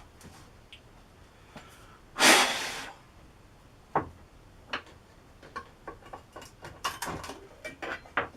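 A tin of clear varnish being opened and handled: one short scraping rush about two seconds in, then a string of light clicks and knocks.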